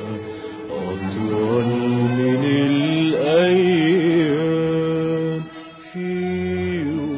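A male singer in an Egyptian Arabic song draws out long, wavering ornamented notes on the words 'ana' and 'atwal men el ayyam' over musical accompaniment. One note is held steady near the middle, and the sound drops out briefly about five and a half seconds in before the singing resumes.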